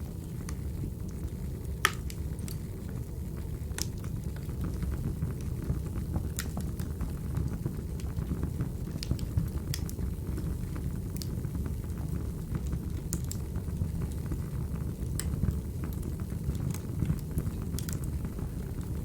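Wood fire crackling: a steady low rumble of burning logs with scattered sharp pops and snaps, the loudest pop about two seconds in.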